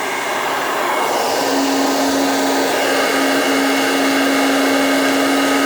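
BERTA 1875 W salon hair dryer running, blowing air steadily. A steady hum joins the rush of air about a second and a half in.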